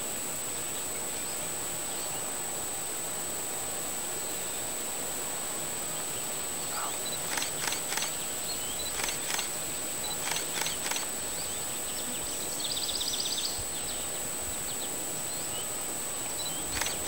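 Outdoor ambience of steady hiss under a constant high-pitched tone. From about seven seconds in come several short groups of three or four sharp clicks, each group a second or so apart, and one brief rapid trill in the middle.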